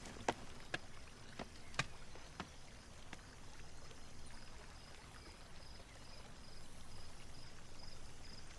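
Quiet outdoor night ambience: a few footsteps on hard ground in the first couple of seconds, then a faint steady background with a soft, high chirp repeating about two or three times a second.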